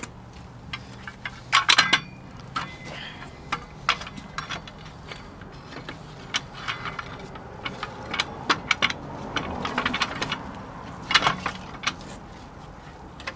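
Scattered metallic clinks and clanks of a new brake shoe and its spring being worked by hand into place on a bus's S-cam air drum brake. The loudest clusters come about two seconds in and again near the end.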